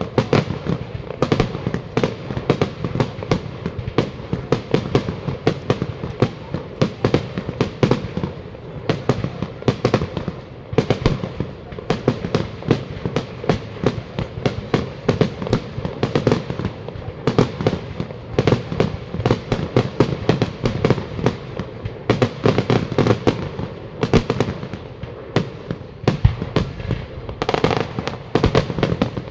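Aerial fireworks display: a rapid, near-continuous volley of bangs and crackles from shells bursting, with hardly a gap between reports.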